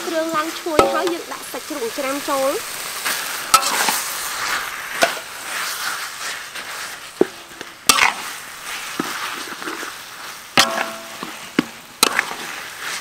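Red curry paste and chicken pieces sizzling in a large aluminium wok as they are stir-fried with a metal ladle. The ladle scrapes and knocks against the pan every second or two.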